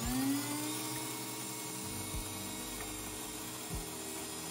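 Electric grain mill switching on, rising in pitch as its motor spins up, then running with a steady hum as it grinds spelt berries into flour.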